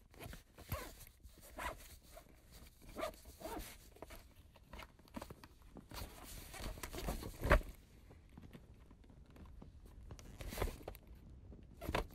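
Irregular rustling and clicking handling noises, with the loudest knock about seven and a half seconds in.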